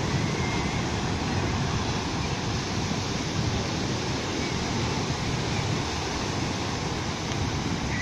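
Sea surf breaking and washing up a sandy beach, a steady rushing noise.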